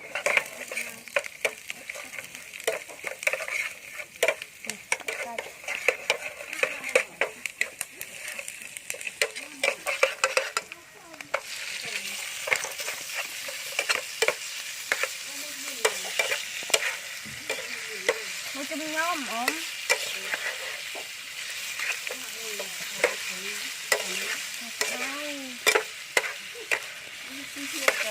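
Food sizzling as it fries in a pan, with the clicks and scrapes of a utensil stirring it. The sizzle grows louder and fuller about eleven seconds in.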